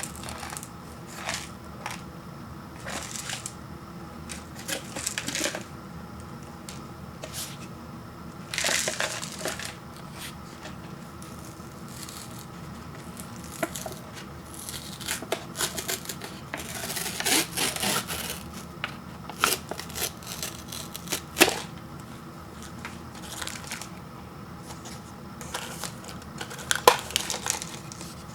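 Packaging of an instant ramen noodle cup being handled and opened: paper and plastic crinkling, rustling and tearing, with scattered sharp taps and clicks. There are louder stretches of rustling about a third of the way in and past the middle.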